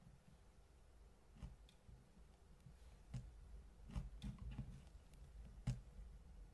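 Slime being handled, giving faint, irregular soft clicks and pops, a little louder about four seconds in and again near the end.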